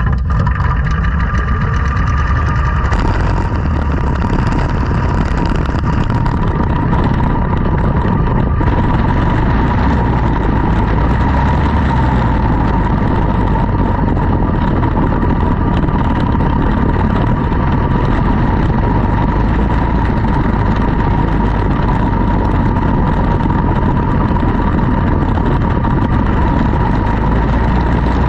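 Quarter midget race car's small single-cylinder four-stroke engine running close to the microphone, a steady drone with a constant whine on top. It grows louder and fuller about three seconds in, then holds even.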